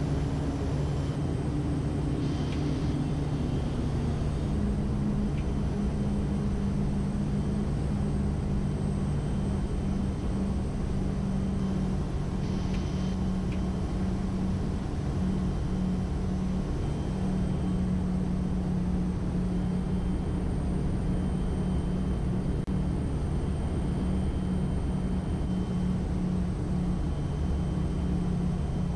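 Kodiak 100's Pratt & Whitney PT6A-34 turboprop and propeller droning steadily inside the cabin on final approach, the pitch of the drone shifting about four seconds in.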